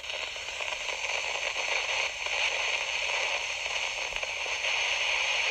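Steady hiss of static, like an untuned radio, with no tune or voice in it.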